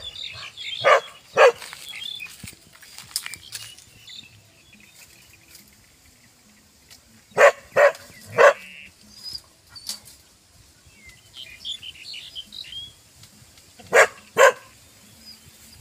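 Hunting dog barking at an animal hidden in the thicket: two barks about a second in, three more about halfway through, and two near the end, with faint high chirps between them.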